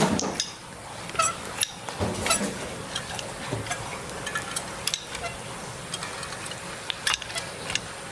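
Manual caulk gun being squeezed to lay beads of construction adhesive: a string of irregular short clicks and ticks from the trigger and plunger rod.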